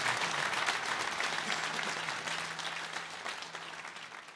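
Concert audience applauding, the applause fading out steadily toward the end.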